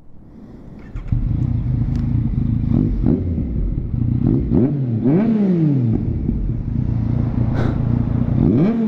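Cold start of a 2017 Yamaha MT-09's inline three-cylinder engine through an Akrapovic full-system exhaust: it fires up about a second in, settles into a loud idle and is blipped several times, the pitch rising and falling with each rev.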